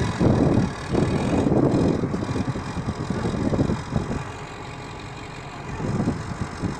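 A heavy vehicle's engine running, louder for the first few seconds and easing off after about four seconds.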